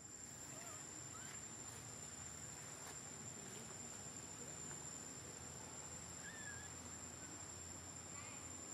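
Faint outdoor ambience: a steady high-pitched insect drone, like crickets or cicadas, over a low hiss, with a few faint short chirps and calls scattered through it.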